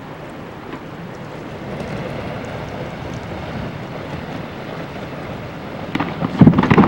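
Rushing wind-and-water noise that swells slowly, then turns much louder and rougher about six seconds in.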